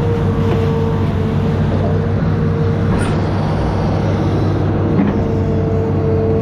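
Amphibious excavator's diesel engine running steadily, with a held tone above its drone. A short knock comes about three seconds in and another about five seconds in.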